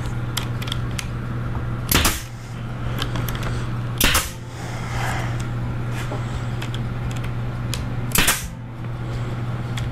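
Pneumatic 18-gauge stapler firing three times, driving 1-inch staples through a half-inch plywood cabinet back panel with sharp snaps: about two seconds in, again two seconds later, and a third about four seconds after that. A steady low hum runs underneath.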